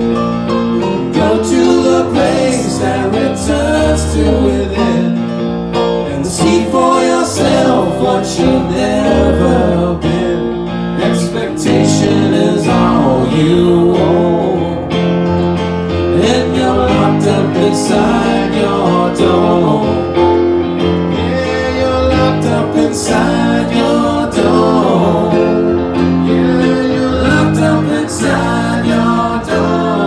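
Live music from a keyboard and electric guitar duo, with a low bass line and a male voice singing.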